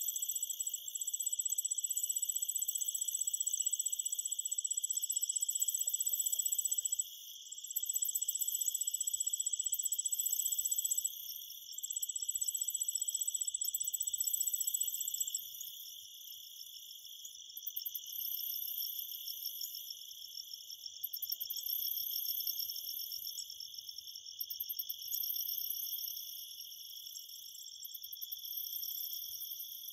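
Chorus of several high-pitched insect trills running together without a break. The highest trill drops out briefly twice and stops about halfway through, and the chorus is quieter after that.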